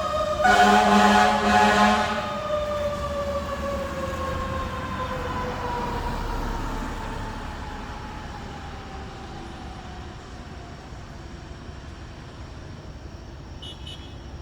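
Fire truck siren wailing, its pitch sliding slowly down and fading away over about ten seconds. A loud air horn blast sounds about half a second in and lasts about a second and a half.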